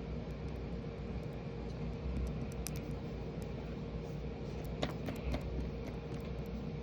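Steady low hum with a faint constant tone, like a running appliance or fan, with a few light clicks about three and five seconds in.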